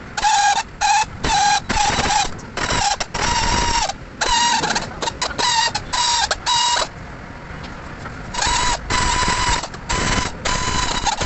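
Power ratchet whirring in a dozen or so short bursts, each a steady motor whine, as it runs the transmission oil pan bolts in on a 2004 BMW X5 to refit the pan, with a pause in the middle.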